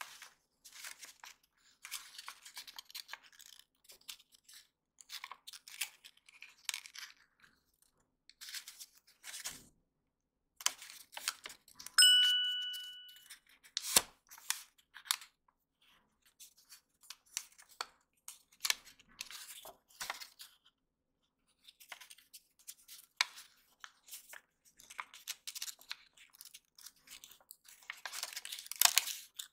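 Origami paper being folded and creased by hand: scattered bursts of crinkling and rustling, with crisp clicks as the creases are pressed. About twelve seconds in, a single clear ding rings out for about a second and is the loudest sound.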